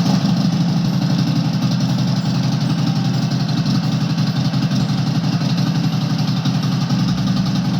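Harley-Davidson Sportster 1200 air-cooled V-twin idling steadily with a fast, even pulse, run briefly after an oil change so the new oil circulates before the level is checked.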